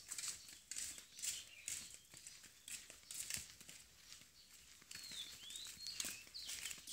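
Light footsteps and sandal scuffs on a concrete yard, with a few bird chirps about five seconds in.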